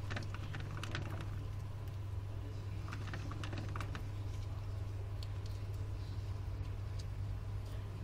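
Hamsters' claws scratching and clicking on bark and wood in irregular light clusters, about a second in and again around three to four seconds in, over a steady low hum.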